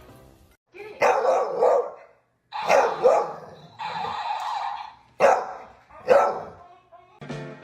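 A dog barking, about five separate outbursts spread over several seconds, the middle one held longer.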